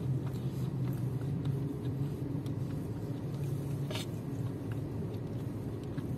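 Steady low rumble of vehicles, with one sharp click of a steel spoon against the plate about four seconds in.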